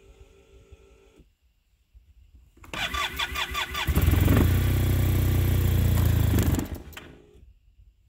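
Arctic Cat Norseman snowmobile being cranked on the key: a steady electric whine for about the first second, then, after a short pause, the starter cranking rhythmically. About four seconds in the engine turns over louder and steadier for a couple of seconds, then stops without staying running. This is a hard no-start after sitting overnight, which the owner suspects is fuel draining from the cylinder through a slow vacuum leak, or else a bad fuel pump.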